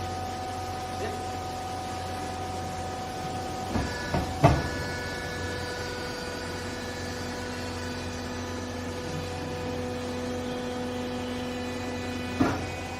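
Vertical hydraulic baler's pump running with a steady hum, with sharp clunks about four seconds in and again near the end, where the tone of the machine changes.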